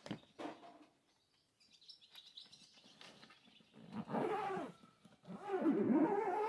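Zipper on a fabric chainsaw carry bag being pulled shut in two strokes, with a couple of knocks from handling the bag near the start. The zipper's buzz rises and falls in pitch with the pulling speed, and the second stroke is longer and the loudest.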